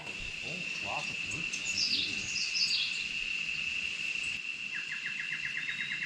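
Tropical forest birds calling over a steady, high insect drone. A few descending whistled phrases come about two seconds in, and a rapid, even trill of notes starts near the end.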